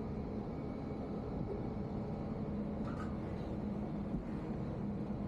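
Ferry engines running steadily: a continuous low rumble with a constant hum.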